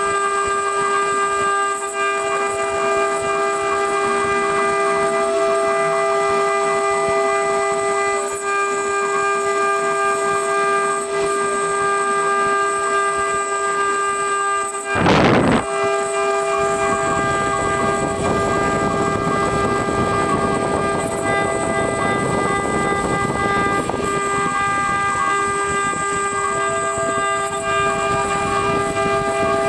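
Mini CNC engraving router running, its spindle giving a steady multi-tone whine while the bit engraves brass. About halfway through there is a short loud burst of noise, and after it a rougher cutting noise runs under the whine.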